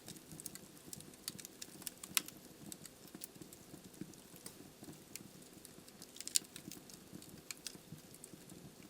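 Wood fire crackling in a fireplace: irregular sharp pops and snaps from the burning logs over a soft, steady low rustle of flame, with two louder pops about two seconds in and again about six seconds in.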